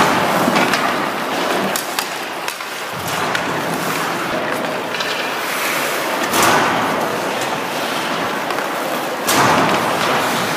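Ice hockey skates carving and scraping across rink ice, swelling into louder scrapes a few times, with now and then a sharp click.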